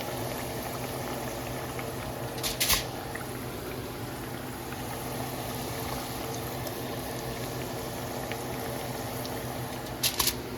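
Food cooking on a stovetop: a steady bubbling, boiling sound over a low hum. Two brief clatters come through it, about two and a half seconds in and again near the end.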